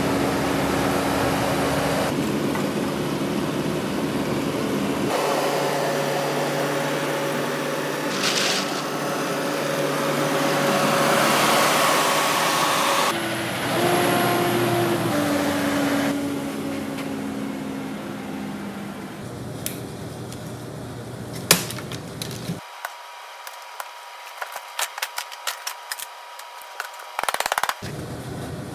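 Kubota tracked skid steer's engine running steadily while it handles a pallet, followed by a series of sharp knocks and clicks as a wooden shipping crate is pried open with a hand tool.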